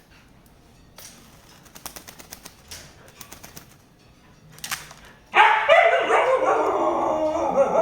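Small splashes and taps of a lory bathing in water, then about five seconds in a loud, wavering animal cry that runs on for about three seconds.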